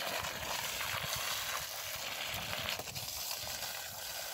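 Water running from a garden hose and splashing onto soil and plant leaves: a steady hiss.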